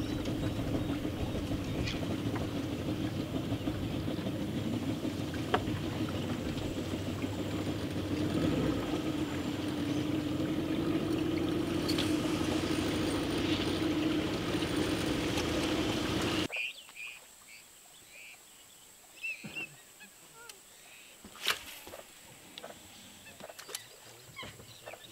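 A boat's motor runs with a steady hum for about sixteen seconds, then cuts off abruptly. A quiet marsh follows, with a few short bird calls and one sharp click.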